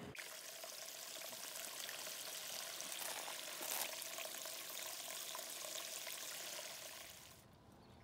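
Shallow stream water trickling, a steady hiss with a few brief splashes about three to four seconds in. It stops abruptly about seven seconds in.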